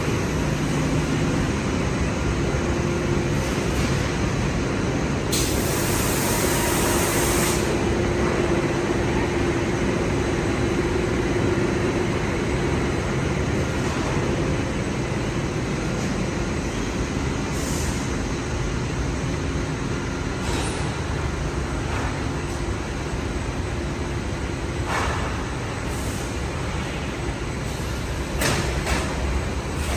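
Rock wool production line machinery running steadily with a faint hum. A loud hiss of about two seconds comes about five seconds in, and a few short clanks follow near the end.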